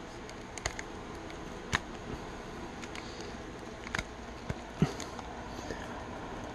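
Plastic joints and limbs of a Lightning Collection Eye Guy action figure clicking and rubbing as it is handled and posed: scattered sharp clicks, the loudest about three-quarters of the way through, over a steady low hiss.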